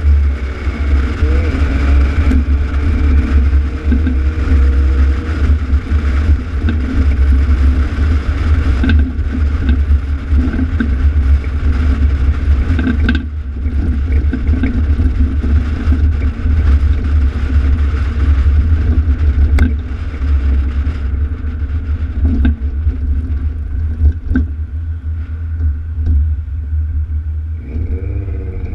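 Alfa Romeo GTV6's V6 exhaust while driving: a steady low drone at cruising speed. Near the end the engine note rises as the car accelerates.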